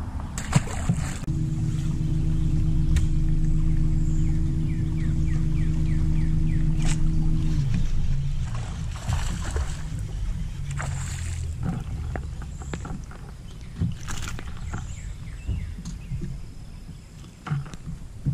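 A fish splashes into the water about half a second in. Then an electric trolling motor hums steadily for about six seconds and cuts off. Scattered light clicks and splashes follow while a bass is reeled in and lifted out of the water.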